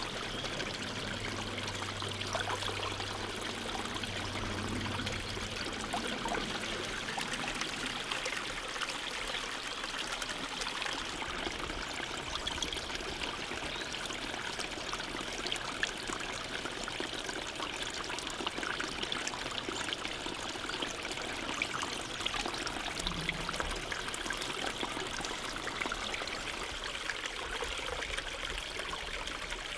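A stream running and trickling steadily.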